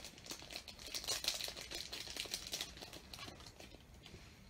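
Plastic packaging crinkling and rustling in quick little clicks as a small bag of nail-art glitter is pulled out of a box. The sound is busiest in the first half and thins out near the end.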